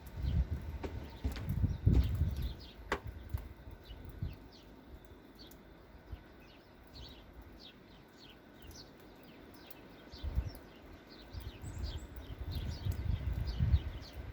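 Small birds chirping, many short falling chirps a few to the second through the middle and later part. Gusts of blizzard wind buffet the microphone early on and again near the end.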